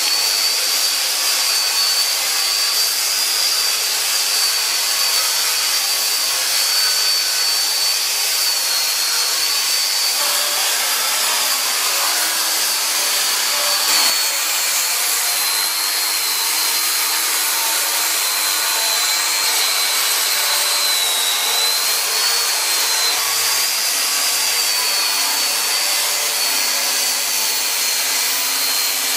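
FEIN GRIT GHB 15-50 pipe belt grinder running with its abrasive belt grinding steel pipe: a steady high whine that wavers slightly in pitch, over a continuous hiss of belt on metal. A brief knock about halfway through.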